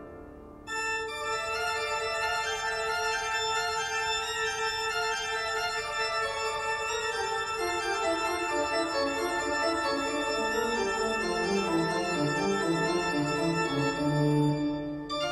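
Background organ music: sustained chords that begin about a second in, over a slowly descending bass line.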